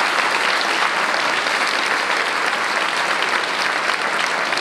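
Audience applauding, a dense, steady clapping that holds at one level.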